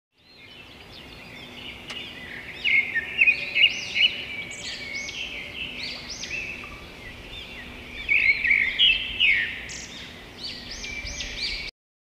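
Small songbirds chirping and whistling together, many quick overlapping notes. The sound fades in over the first couple of seconds and cuts off abruptly just before the end.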